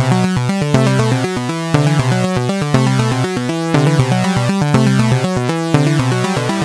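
Electronic theme music: quick, rapidly changing notes over a low bass line, with an accent about once a second.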